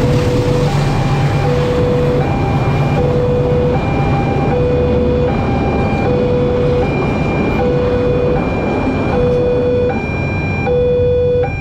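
Level-crossing warning siren sounding a two-tone hi-lo pattern: a lower note and a higher note taking turns, each about three-quarters of a second long. It plays over a loud, steady rumble that eases off near the end.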